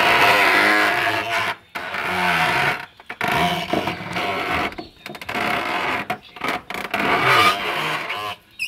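Wooden hand-operated sugarcane press (trapiche) creaking and squeaking, wood rubbing on wood under load as its levers are worked, in repeated strokes with short breaks between them.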